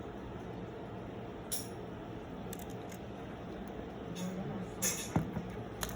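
Handling noise from a camera and its detached prism: a faint click about a second and a half in, then a few sharp clicks and taps near the end.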